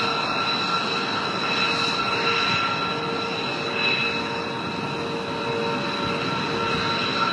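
Jet aircraft engines running: a steady roar with several steady high whining tones on top.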